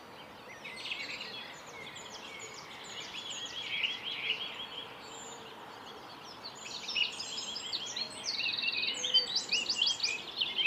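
Several birds chirping and calling over one another, the calls growing busier over the last few seconds.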